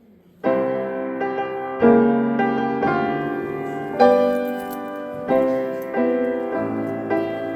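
Piano music playing slow, ringing chords, struck about every one to two seconds, each one dying away; it starts after a short gap about half a second in.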